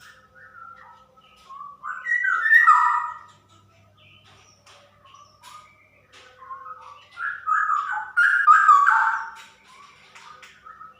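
Female straw-headed bulbul (cucak rowo) singing rich, warbling whistled phrases, two loud bursts of song with softer notes in between.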